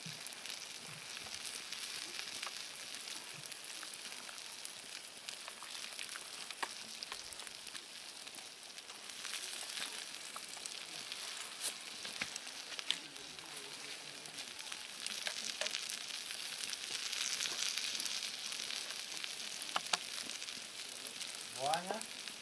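Kharcho stew of vegetables and tomatoes sizzling and simmering in a cast-iron pot over a campfire: a steady hiss with small crackles.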